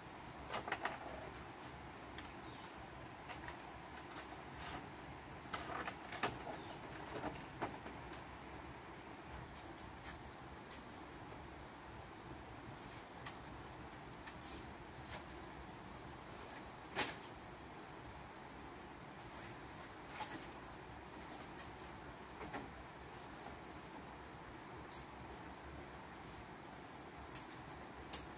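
Insects chirring steadily at one high pitch. A few sharp knocks and clicks break in, a cluster of them a few seconds in and the loudest about seventeen seconds in.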